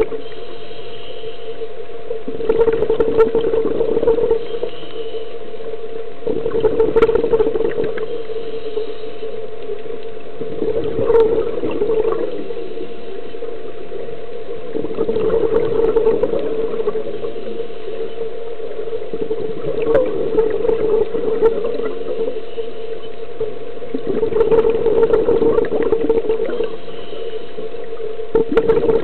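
Scuba diver breathing through a regulator underwater: surges of exhaled bubbles about every four to five seconds, over a steady hum.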